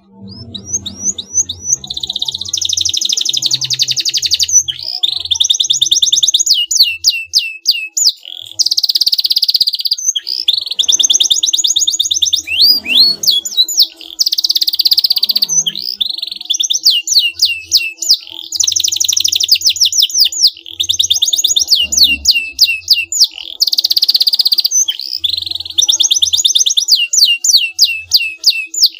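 Canary singing a long, loud song. Stretches of fast buzzing trills alternate with runs of quick, separate sweeping notes, about six a second, broken by short pauses between phrases.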